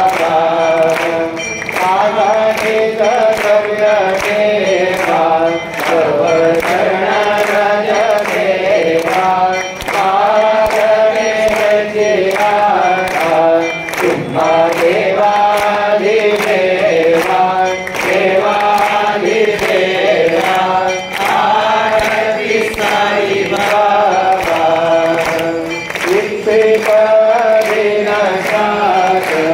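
A group of voices singing a devotional chant in long, gliding phrases over a steady percussive beat of about two strikes a second.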